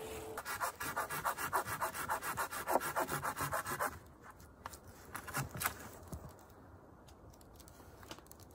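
Hand saw cutting through a wooden branch with quick, even back-and-forth strokes, about four or five a second, stopping about four seconds in. A few light knocks follow.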